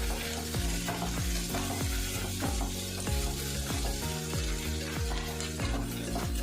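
Chopped bitter gourd frying in coconut oil in a non-stick pan, sizzling steadily as it is stirred. Background music with a steady beat plays underneath.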